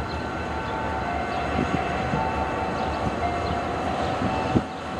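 Freight train rolling by with a steady rumble, its wheels knocking sharply at rail joints a few times, the loudest knock near the end, over a faint steady tone that steps between two pitches.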